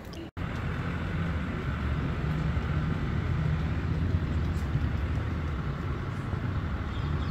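Steady low rumble of road traffic, with vehicle engines running nearby. It cuts in after a brief dropout just after the start.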